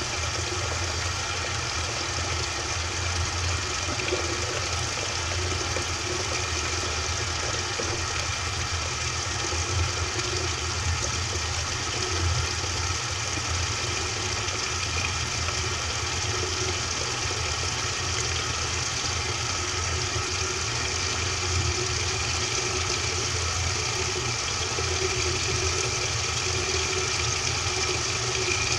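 Washing machine running, recorded from inside its drum: a steady mechanical hum over a deep, slightly uneven rumble, with no change in level.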